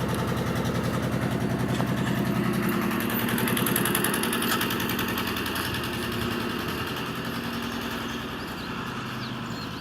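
An engine running steadily with a fast even beat, a little louder around the middle and fading slowly toward the end.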